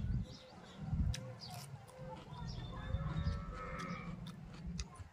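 Eating by hand: fingers working rice and fried small fish on a steel plate, and chewing, with scattered small clicks. An animal calls in the background for about a second, roughly three seconds in.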